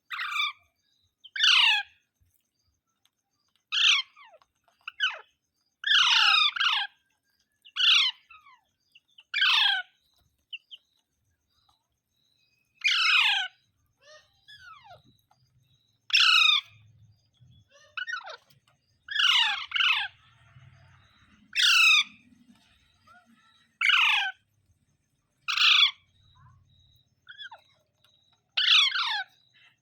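A green parrot calling, a run of about fifteen short, shrill squawks that each slide downward in pitch, coming every one to three seconds.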